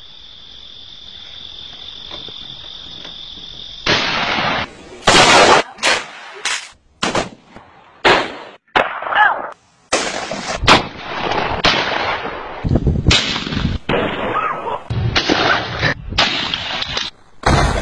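A steady, high insect-like drone for about four seconds, then a rapid series of loud gunshots from shotguns and handguns: more than a dozen shots and bangs, irregularly spaced, some with a ringing tail.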